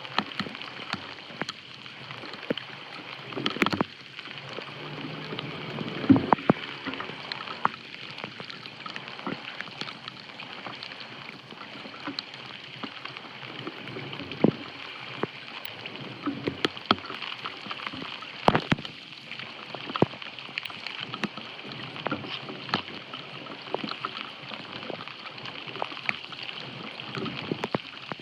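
Floodwater splashing and sloshing while a clogged street drain is cleared, with frequent short knocks and scrapes and a louder cluster of knocks about six seconds in.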